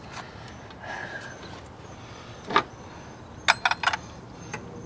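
Electrical connectors being pushed onto a 2005 Ford F-250's FICM (fuel injection control module), with sharp plastic clicks as they seat: one click about two and a half seconds in, then a quick run of three or four clicks a second later.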